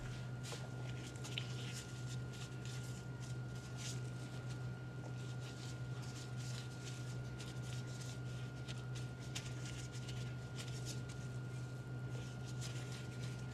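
Gloved hand scattering crumbled vegan ground sausage onto pizza dough in a cast iron pan: soft, irregular rustling and pattering as the crumbles drop and are spread. Under it runs a steady low hum and a faint steady high tone.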